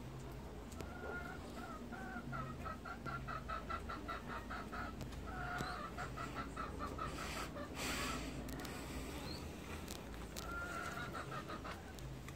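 Pheasants calling: a fast run of short clucking notes, then a brief rushing noise about halfway through, and another drawn-out call near the end.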